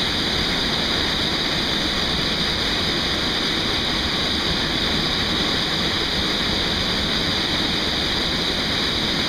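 A canyon waterfall shooting out of a gap in the rock as a powerful jet, rushing with a steady, unbroken roar close by.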